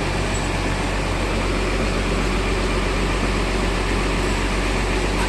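Large bus diesel engine idling steadily, with a constant low hum.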